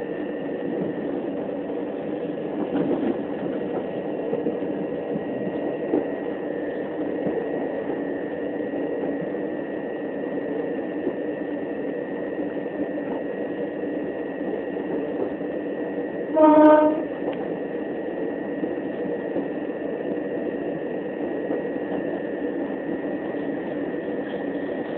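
Class 375 Electrostar electric multiple unit running at speed, heard from inside the passenger saloon as a steady rumble with a steady high tone. About two-thirds of the way through, the train's horn sounds once in a short blast of about half a second.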